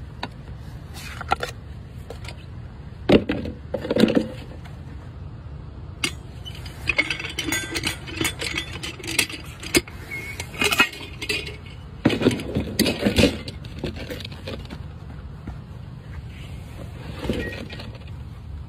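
Metal golf-green repair tools, a cup-puller hook and a hand hole cutter, clinking against the metal hole cup and scraping into turf in a string of irregular knocks, clinks and scrapes. A steady low rumble runs underneath.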